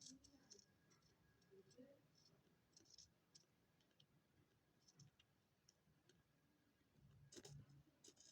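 Near silence with faint, scattered light clicks and ticks, a cluster of slightly louder ones near the end.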